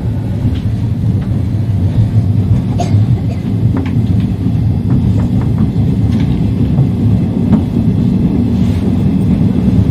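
Electric train heard from the driver's cab as it pulls slowly out of the station: a steady low running noise that grows slightly louder, with a few scattered clicks of the wheels over rail joints and points.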